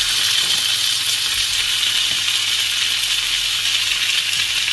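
Diced raw pork belly and chopped garlic frying in hot oil in a frying pan: a steady sizzling hiss.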